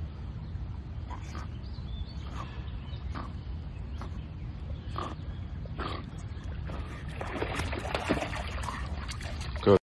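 Dog swimming through pond water, with short breaths about once a second, then splashing through the shallows as it comes ashore over the last few seconds. A short loud vocal sound comes just before the sound cuts off.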